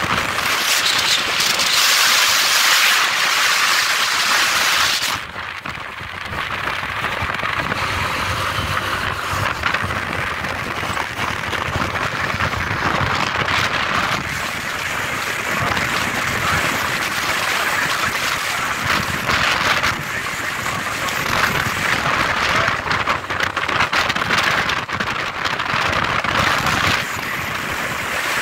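Wind rushing over the phone's microphone on a moving motorcycle, mixed with road and traffic noise. It eases for a moment about five seconds in, then goes on steadily.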